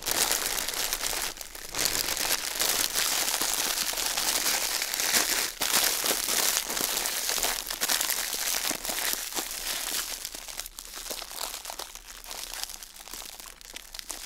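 Clear cellophane film and decorative paper crinkling and crackling as hands bunch them together and twist them at the top. The crackle comes in a dense stream and thins out over the last few seconds.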